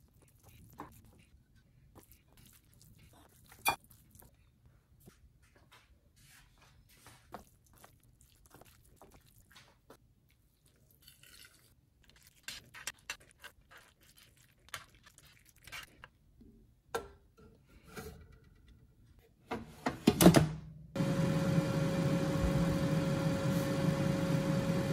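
Soft scraping and clicking of a spatula and spoon working crumbled tofu and mushrooms in a bowl and mould. About twenty seconds in comes a loud metal clatter, then an air fryer starts running with a loud steady whir and a constant hum.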